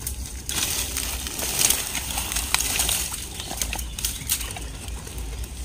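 Dry straw and twigs crackling and rustling underfoot, with many scattered sharp snaps, as a water buffalo walks down a littered bank to the water's edge. The rustling starts about half a second in and thins out near the end.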